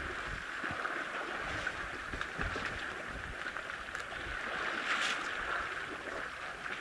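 Water splashing and churning as young African elephants roll and swim in a waterhole: a steady wash of disturbed water with frequent small splashes.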